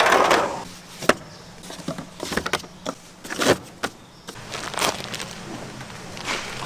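Irregular knocks and clatter of food-stall kitchen work, over a low steady hum. There is a short noisy burst at the very start, then about half a dozen separate knocks spread through the rest.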